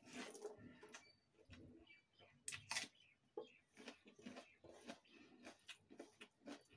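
Faint eating sounds: chewing of wet, water-soaked leftover rice (baasi bhaat) eaten by hand, with fingers squishing and mixing the rice on a steel plate. Irregular small clicks and smacks, the loudest a couple of seconds in.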